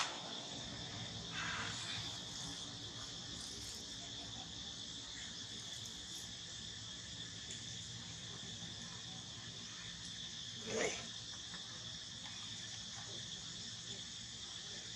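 Steady, high-pitched drone of insects. A brief louder sound cuts across it about two-thirds of the way through.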